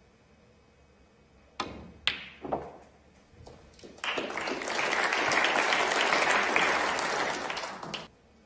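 Snooker balls: a cue strike, then about half a second later the sharp click of the cue ball hitting the yellow and a knock as it goes into the pocket. About a second and a half later the arena audience applauds the pot for about four seconds, and the applause stops sharply.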